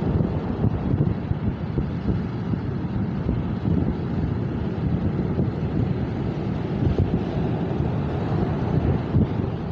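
Strong wind buffeting the microphone: a loud, gusty rumble that flutters unevenly throughout.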